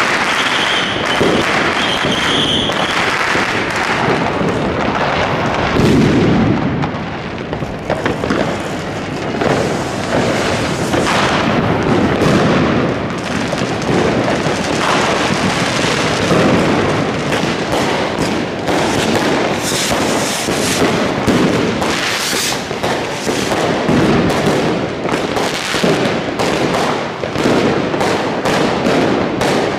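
New Year's Eve fireworks going off all around: a dense, unbroken barrage of firecracker bangs and crackling with heavier booms mixed in. A steady high whistle sounds for the first few seconds.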